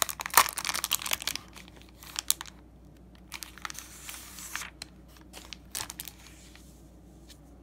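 Clear plastic bag crinkling as a pack of chiyogami paper is slid out of it. Dense crackling for the first second and a half, then scattered crinkles and paper rustles that die away near the end.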